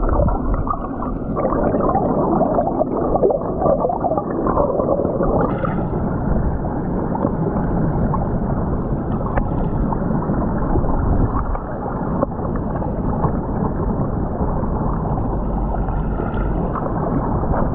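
Turbulent stream water rushing and bubbling, heard underwater: a steady, muffled churning rumble.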